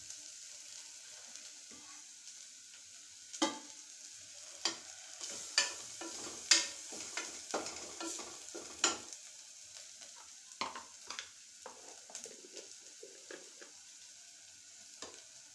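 Onion-tomato masala frying in oil in an open aluminium pressure cooker, sizzling steadily, while a spatula stirs it and scrapes and knocks against the pot at irregular intervals.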